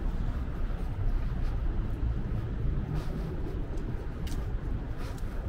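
City street ambience: a steady low rumble of traffic, with a few light clicks over it.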